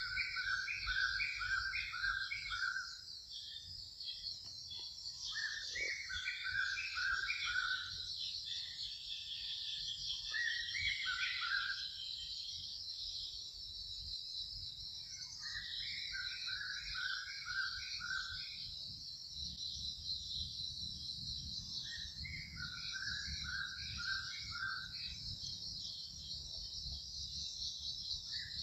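A bird singing a short phrase of six or so repeated whistled notes, coming back every five to six seconds, over a steady high-pitched insect chorus.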